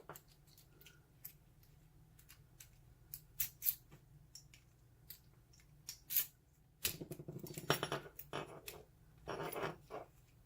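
Small metal clicks and taps from tools working on a euro cylinder lock being taken apart, scattered at first, with a stretch of scraping and handling noise about seven seconds in and again near the end.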